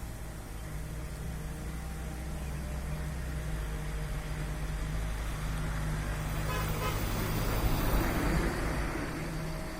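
A road vehicle passing: its noise swells to a peak about eight seconds in and then fades, over a steady low hum.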